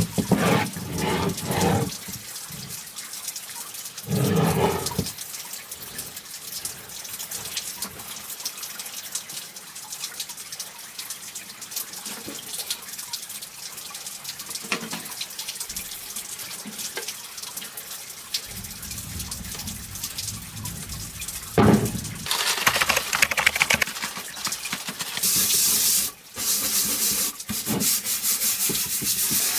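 Rusted steel ammunition box being washed and scrubbed during rust removal: water sounds and rubbing, with scattered knocks, then a louder, steady scrubbing over the last few seconds.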